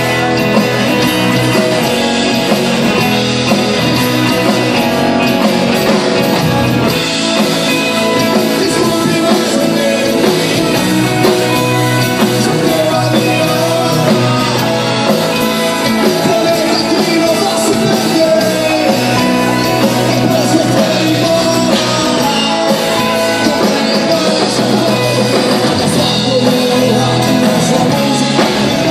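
Live rock band playing an acoustic set: a male singer over acoustic guitars, keyboard and drums.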